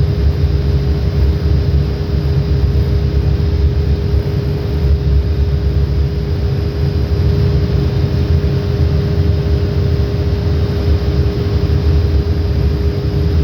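Provision refrigeration compressor running steadily amid shipboard machinery: a loud, constant mechanical hum with a deep rumble and a steady tone.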